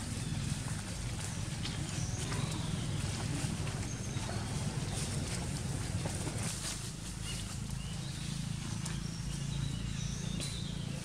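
Macaques scuffling and walking on dry leaf litter, with light rustles and taps, over a steady low rumble. A few faint high chirps come and go.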